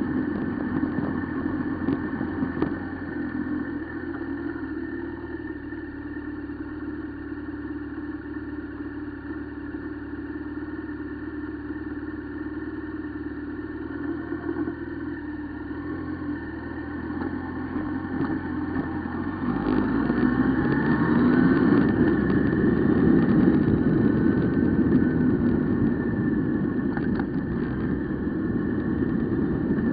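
Honda CB1000R motorcycle's inline-four engine idling steadily, then running louder and harder about two-thirds of the way through, with a rush of wind noise rising over it.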